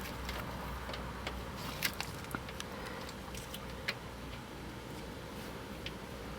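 Scattered light clicks and taps of a screwdriver working at the oil drain plug, a few sharper ones about two seconds in and near four seconds, over a faint low hum.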